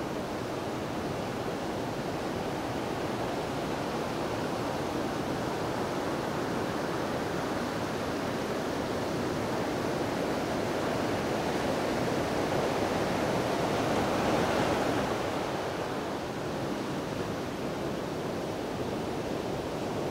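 A steady rushing noise that swells once, about two-thirds of the way through, and then falls back.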